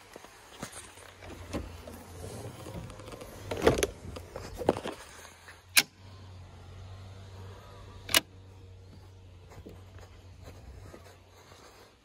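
Jeep JL soft-top frame being handled: knocking in the first half, then two sharp clicks of its metal frame hardware about two seconds apart, over a steady low hum.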